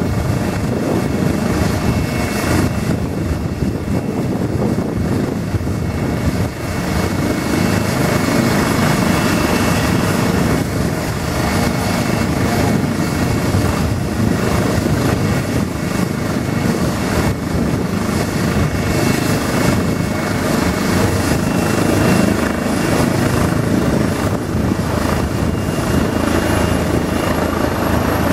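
Eurocopter EC135 air ambulance helicopter running on the ground, main rotor turning, ready to depart: a steady, loud mix of rotor and turbine noise with a thin high turbine whine that edges up in pitch near the end.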